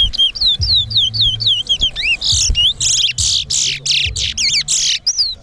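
Towa towa (chestnut-bellied seed finch) singing: a fast run of short, downslurred whistled notes, about four a second. About two seconds in the song turns into louder buzzy, downsweeping notes, then goes back to a few whistles near the end.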